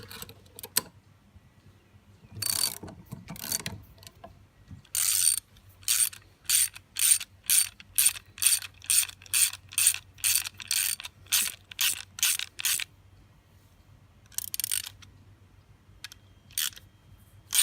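Ratchet wrench clicking as a nut is tightened onto a bolt, in a run of strokes at about two a second through the middle, with a few shorter bursts before and after.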